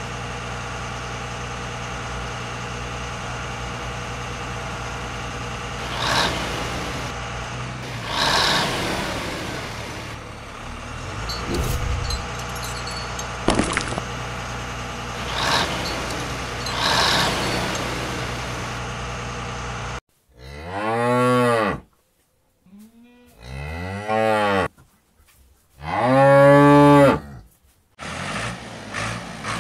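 A steady engine hum with a few brief swells, which cuts off about twenty seconds in. A cow then moos three times, each moo rising and falling in pitch, the last the loudest.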